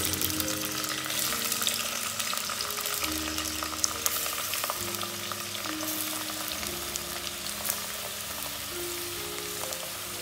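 Sliced onions frying in hot oil in a steel pot: a steady sizzle with many small crackles, as more slices are pushed in from a plate.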